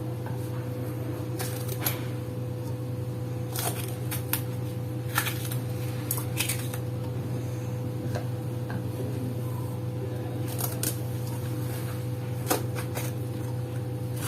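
Knife slicing red chilli peppers into rounds, heard as scattered, irregular sharp clicks and taps. A steady low hum runs underneath.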